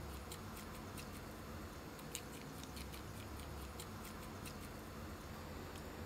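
Spice shaker being shaken, paprika sprinkling onto raw chicken: faint, irregular light ticks about two or three a second, over a low steady hum.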